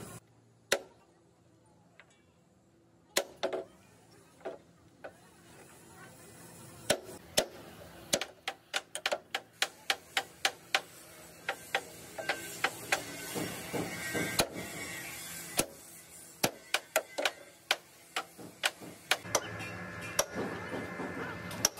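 Hammering: sharp knocks, a few widely spaced at first, then coming quickly, two or three a second, for about ten seconds before easing off.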